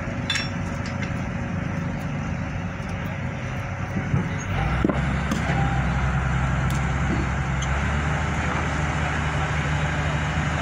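Crane engine running steadily, speeding up to a louder, steady note about four and a half seconds in, with a couple of sharp knocks around then.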